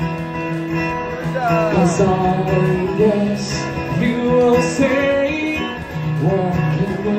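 A man singing live to his own acoustic guitar accompaniment: strummed chords under a melodic vocal line that bends and glides between notes.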